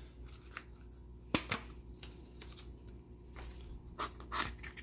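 A small cardboard box being opened by hand: tape and flaps coming loose give sharp clicks, two close together about a second and a half in and a couple more near the end, with light cardboard handling between.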